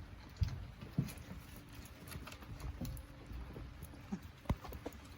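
Golden retriever puppies playing, with irregular light knocks, thumps and scuffles.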